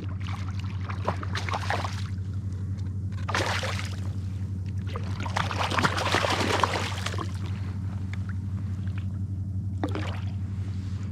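Shallow salt water sloshing and splashing in several short bursts over a steady low hum.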